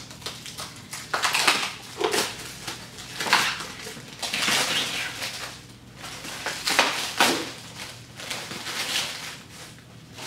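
Plastic packaging or protective film crinkling and rustling in irregular bursts as it is handled.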